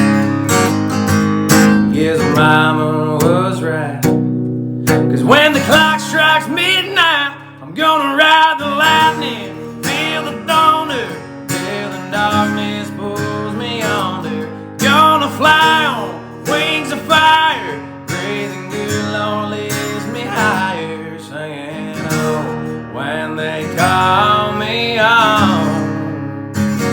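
Country song with strummed acoustic guitar and a male voice singing.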